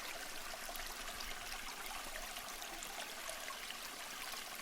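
Water spraying and splashing: a steady, even hiss.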